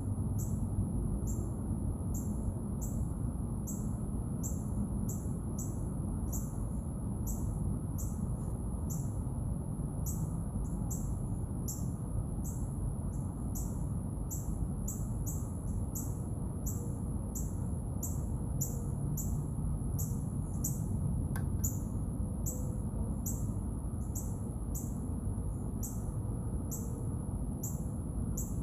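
Outdoor summer ambience: a short high chirp repeated about twice a second, over a steady very high whine and a low rumble.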